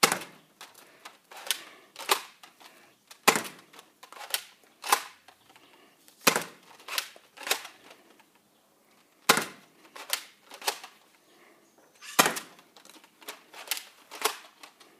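A toy foam-dart blaster being primed and fired again and again: a run of sharp clicks and snaps in loose, irregular groups.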